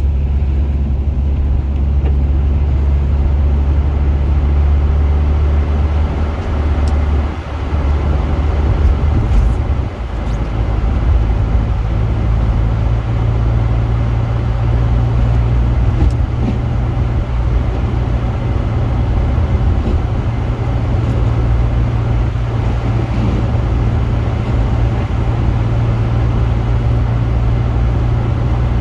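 Honda Accord Sport running on the road: a steady low engine and road drone. It dips briefly about a quarter of the way in, then settles slightly higher in pitch.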